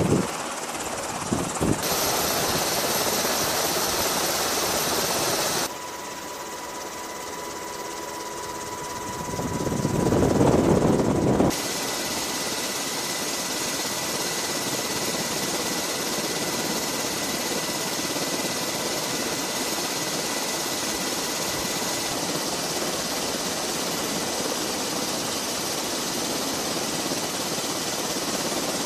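Navy MH-60S Seahawk helicopter running steadily, its turbine and rotor noise filling the sound. The noise swells loudly about ten seconds in, and its character changes abruptly a few times where the shots change.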